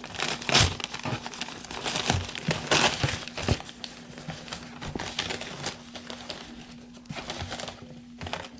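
Brown kraft packing paper crinkling and crackling as hands pull it open and off folded clothes in a cardboard box. Irregular rustles are loudest in the first few seconds, then give way to softer rustling as the clothing is lifted out.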